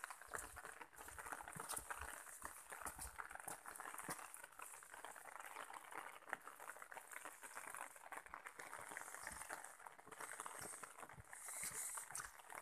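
Footsteps and rustling from someone walking a wet dirt footpath through grass, heard as a steady crackle of irregular small clicks with uneven low thumps.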